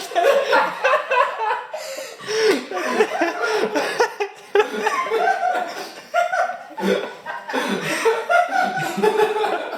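People laughing in bouts, with short breaks about two, four and a half and seven seconds in.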